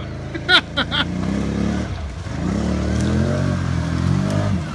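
Can-Am Outlander XMR 650 ATV's V-twin engine pulling through deep creek water, revved up and down several times. Brief loud shouts from a person about half a second in.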